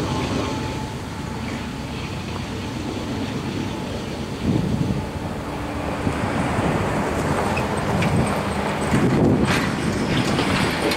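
Strong wind gusting against the microphone in irregular surges, over the low rumble of a distant freight train.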